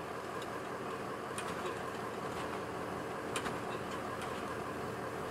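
Honey bees buzzing around an opened hive and a frame held up in the open: a steady, even drone with a couple of faint ticks.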